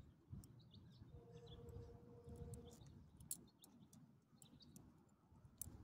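Near silence: faint outdoor ambience with scattered small ticks and a faint steady hum for a second or two, about a second in.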